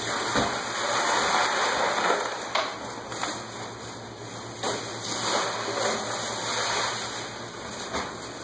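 Bagged ice being poured into a plastic trash can: a rushing, rattling cascade of ice cubes that comes in several pours, with a few brief knocks, over a steady low hum.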